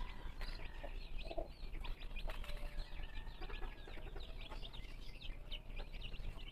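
Newly hatched silkie chicks peeping: many short, high-pitched peeps close together, with one lower call about a second and a half in.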